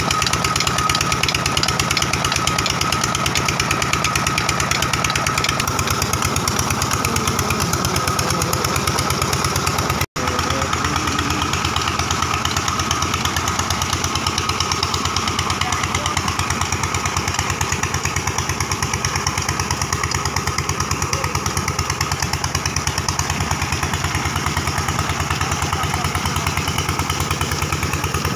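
Peter (Petter-type) diesel engine running steadily with a fast, even exhaust beat under the load of a tubewell pump. The sound drops out for an instant about ten seconds in, then the same engine carries on, with water splashing from the outlet pipe mixed in.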